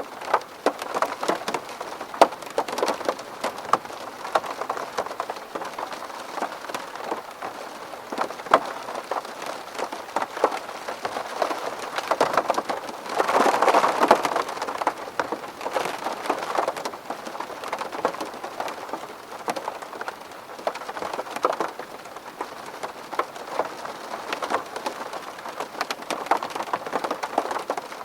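Rain falling on a window pane: a steady patter with many sharp individual drop hits, swelling into a heavier spell about halfway through.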